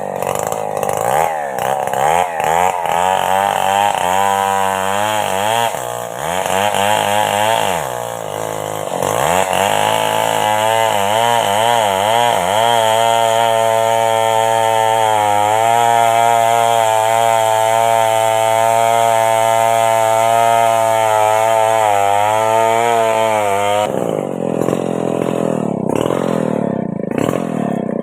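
Stihl chainsaw running. The engine is revved up and down for the first ten seconds or so, then held at a steady high speed for about fourteen seconds, then drops back and runs unevenly near the end.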